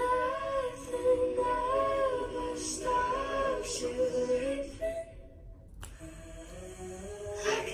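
A woman singing a melody, holding notes that slide up and down. The singing breaks off briefly a little past halfway and picks up again near the end.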